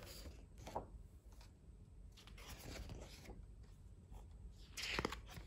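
Paper pages of a picture book turned and smoothed by hand: soft rustling swishes of paper, the loudest about five seconds in.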